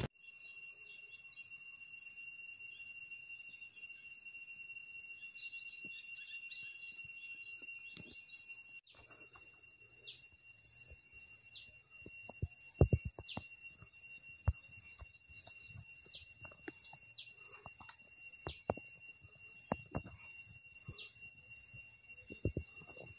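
Steady, high-pitched drone of insects in the trees, with a thin steady tone beneath it. About nine seconds in the drone shifts slightly, and scattered light clicks and knocks follow.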